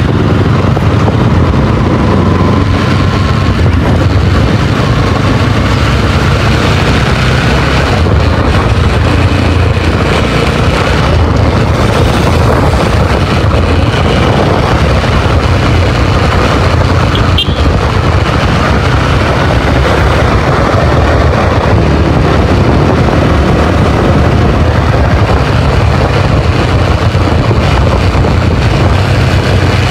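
Motorcycle ridden hard at speed: the engine runs under heavy wind noise rushing over the rider's microphone, loud and steady throughout.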